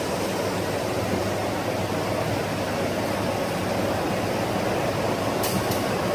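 1988 Bobst folder-gluer running at production speed, a steady mechanical whirring rush from its belts, rollers and delivery conveyor. Two short clicks about five and a half seconds in.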